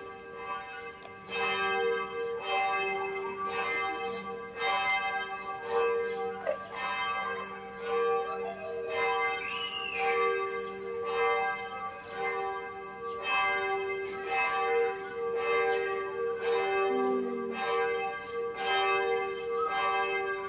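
Church bells pealing for six o'clock in the evening: a steady run of strikes about every three-quarters of a second over a sustained ringing hum.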